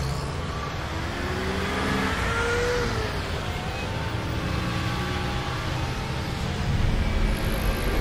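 Busy city road traffic: cars and vans passing in a steady rumble. Between about one and three seconds in, one vehicle's note rises in pitch as it accelerates, and the traffic swells louder near the end.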